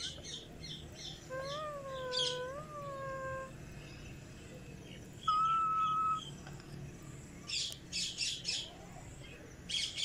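Cockatiel chirping and whistling: short chirps, then a wavering whistle that rises and falls twice. About five seconds in comes a loud, steady held whistle, and near eight seconds a quick run of chattering chirps.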